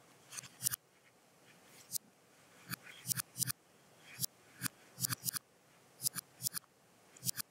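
Sharp short clicks, often in quick pairs or threes, about a dozen in all at irregular gaps, as bricks are selected and placed in LEGO Digital Designer.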